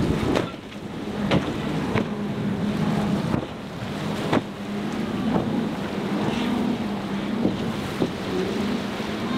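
Twin outboard motors of a center-console boat running at speed through rough water, a steady drone, with wind rushing on the microphone and several sharp slaps as the hull hits the waves.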